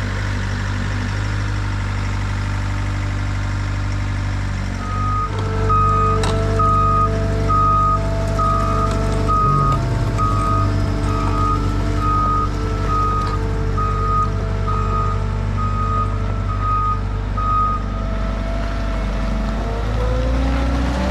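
Skid steer engine running steadily under load, with its reversing alarm beeping about one and a half times a second from about five seconds in until a few seconds before the end. The engine note rises near the end.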